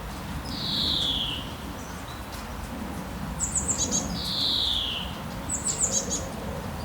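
Birds calling: a slurred whistle falling in pitch, given twice about three and a half seconds apart, with quick runs of high chirps between, over a low steady background rumble.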